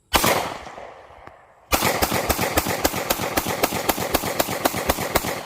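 A single gunshot with a long fading echo, then about a second and a half later a rapid string of about twenty shots, roughly six a second, that stops near the end.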